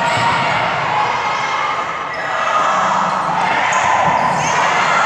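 Volleyball rally in a large gym: the ball is struck during play over a steady din of crowd noise and shouting.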